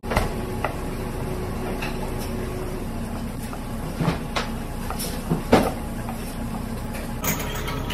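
Knife cutting raw anglerfish fillet into chunks on a plastic cutting board: a few scattered knocks of the blade against the board, the loudest about five and a half seconds in, over a steady background hum.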